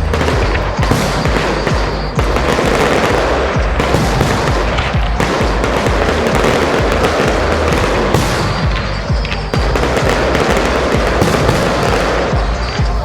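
Large display fireworks going off in a rapid, continuous barrage of crackles and bangs, packed so close they barely break, with a few heavier bangs standing out.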